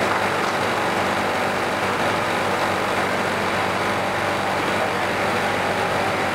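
Steady hum and rushing noise of a running air-conditioning unit, even throughout with no breaks.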